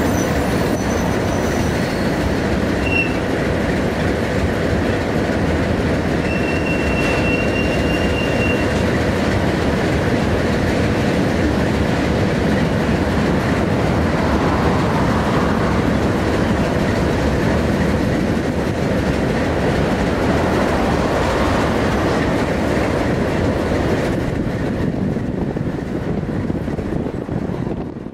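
Freight cars rolling past with a steady rumble and clatter of wheels on rail. Two high steel-wheel squeals come through, a short one about three seconds in and a longer one around seven seconds in. The sound fades out near the end.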